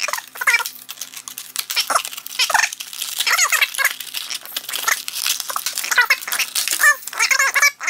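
Clear plastic blister packaging being pulled off its cardboard backing and handled: a dense crinkling and crackling, with short squeaks of the plastic.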